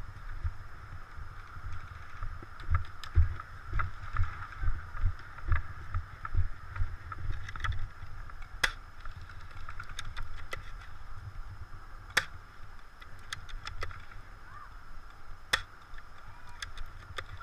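Rhythmic low thuds and rustling from someone walking with a body-worn camera, with a few single sharp snaps.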